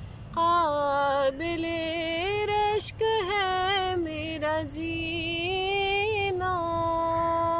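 A woman singing an Urdu naat solo and unaccompanied, in ornamented phrases with wavering, gliding notes and short breaks for breath, ending on a long steady held note.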